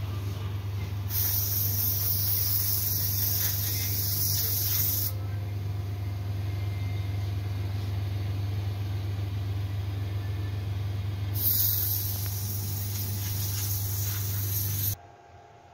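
A hydrafacial machine's airbrush-style spray gun hisses in two long sprays of about four seconds each, over a steady low hum from the machine. The hum and the spray cut off together shortly before the end.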